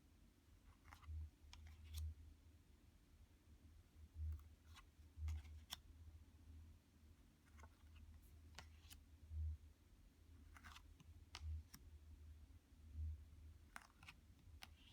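Tarot cards handled and flipped one by one: faint, irregularly spaced card clicks and slides, with soft low thumps of the cards and hands against the table.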